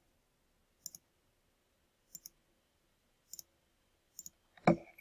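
Computer mouse button clicking: four quiet double clicks, press and release close together, about once a second, then a louder click or knock near the end.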